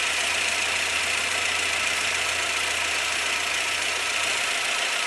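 Chevrolet Sail four-cylinder petrol engine idling steadily, heard close up under the open bonnet. The engine has a cylinder 1 misfire (code P0301).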